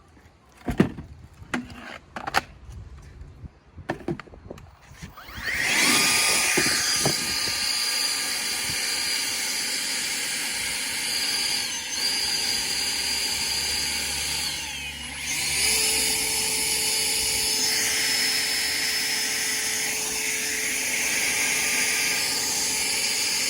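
Battery-powered Ego leaf blowers. After a few seconds of handling knocks and clicks, one blower spins up with a rising whine to a steady rush of air and motor whir. About fifteen seconds in the sound dips and shifts, and a second whine joins as both blowers run together at full speed.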